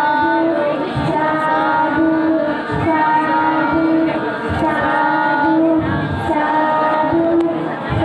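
A song with a high singing voice holding long, steady notes over low beats that come about once a second.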